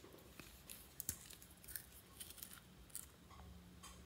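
Faint clicks and light scraping of a nail polish bottle being unscrewed, its brush cap pulled out, with a sharper click about a second in and another near three seconds.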